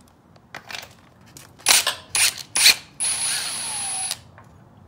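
Cordless impact wrench blipped in three short trigger pulls, then run for about a second and stopped suddenly. It is spinning out a motor mount bolt that has already been broken loose.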